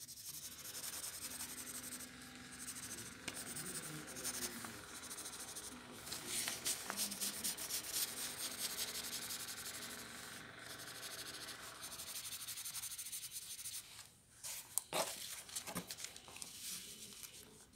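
Graphite pencil shading on drawing paper: fast back-and-forth scratchy strokes. Near the end the shading stops and the paper sheet crackles a few times as it is handled.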